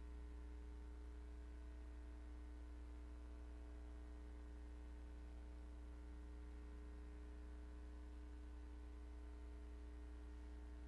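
A faint, steady low hum with a light hiss.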